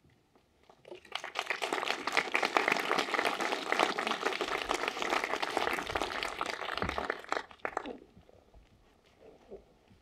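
Audience applauding after a speech ends. The clapping starts about a second in, holds for several seconds, and dies away near the end.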